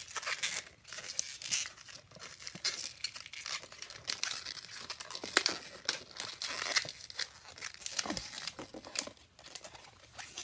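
Long latex twisting balloon being twisted and folded by hand into bubbles: many short rubbing and scraping sounds of the rubber. There is one brief rising squeak a bit past the middle.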